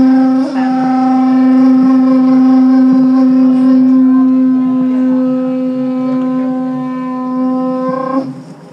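Conch shell trumpet blown in one long, steady, loud note held for about eight seconds, with a brief catch about half a second in, stopping just before the end. It is blown to announce the canoe's departure.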